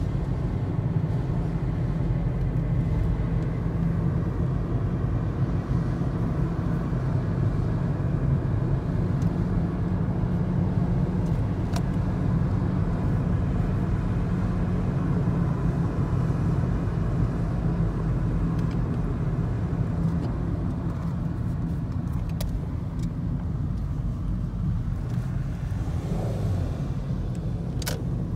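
Steady low rumble of a car's engine and tyres heard from inside the cabin while driving, easing a little near the end, with a few faint clicks.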